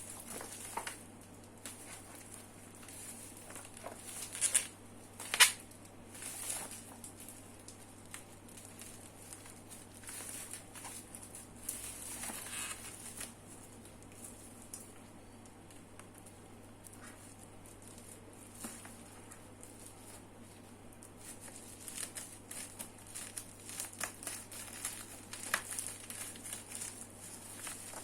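Keyboard packaging being handled while unboxing: scattered light knocks and handling noise, with a sharper knock about five seconds in, over a low steady hum.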